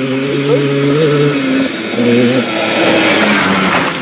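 1991 Yamaha Blaster's air-cooled 200cc two-stroke single running hard down a dirt straightaway. The engine note breaks off briefly twice, about a second in and again past two seconds. Near the end a rising rush of noise takes over.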